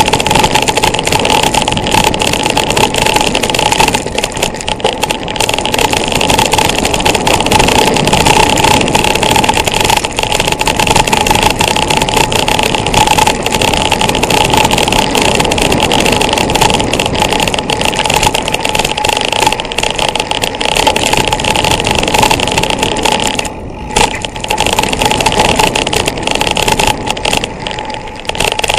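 Loud, continuous ride noise from an action camera on a mountain bike going downhill on a dirt trail: wind rushing over the microphone, tyres rolling on dirt and gravel, and the bike and camera mount rattling over bumps. It eases off briefly about three-quarters of the way through.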